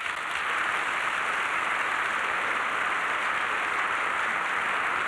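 A large audience applauding, a dense, even clapping that comes up to full strength right at the start and holds steady.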